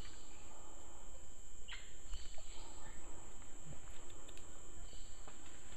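Rainforest insect chorus: a steady, high-pitched, unbroken drone, with a few faint scattered clicks and rustles.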